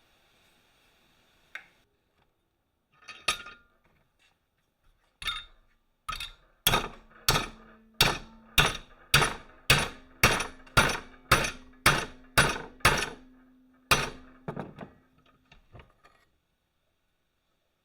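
Hammer striking steel: a few separate blows, then a steady run of about a dozen strikes at roughly two a second, with a low ringing note from the metal carrying through the run, one last blow after a short pause, and a few light taps.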